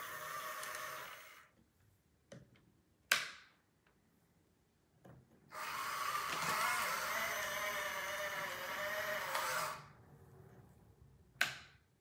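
Electric motors of a 1/14-scale RC hydraulic tracked skid steer loader whining, in two runs: briefly at the start, then for about four seconds from the middle, the pitch wavering as the controls are worked. Two sharp clacks come in between, one about three seconds in and one near the end.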